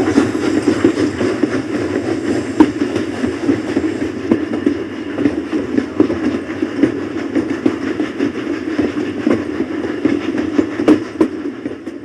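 Steam train running at full speed: a steady rumble with occasional sharp clicks from the wheels on the rails, fading away near the end.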